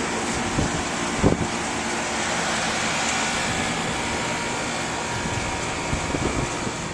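Rooftop packaged air-conditioning units running: a steady rushing noise with a low hum, and a few short knocks, the loudest about a second in.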